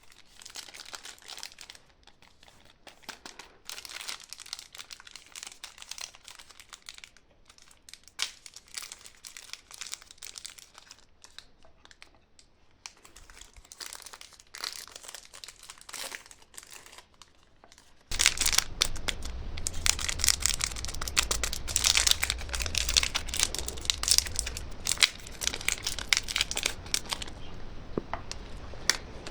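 Candy wrappers crinkling and tearing as they are handled and unwrapped, a dense run of sharp crackles. About 18 seconds in it turns abruptly louder and denser, with a low rumble underneath.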